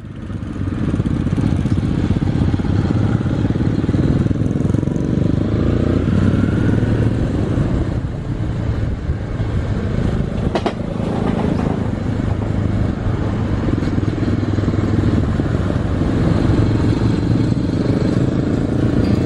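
Motorcycle engine running steadily at riding speed, with a low, even drone.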